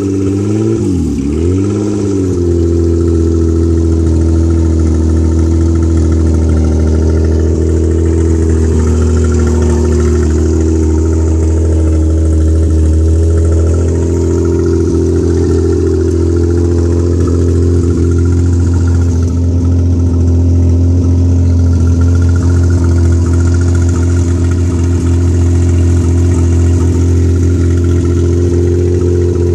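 Hyundai Sonata 2.5 L V6 engine blipped up and down a couple of times in the first two seconds, then idling steadily and loudly. The car is listed with a bad exhaust.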